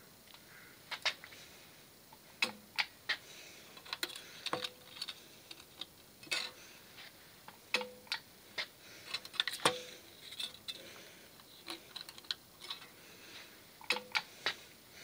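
Irregular sharp clicks and light metallic taps from micro spot welding thin titanium sheet: the welder snapping as it fires and the sheet tapping against the copper electrodes as it is positioned. Some taps leave a brief ring.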